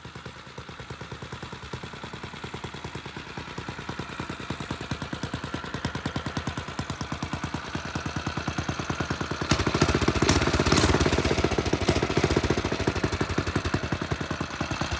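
Predator 212 single-cylinder four-stroke engine on a straight-piped minibike, running with an even, rapid exhaust beat. Its revs rise at about nine and a half seconds and it runs louder for a couple of seconds before easing back.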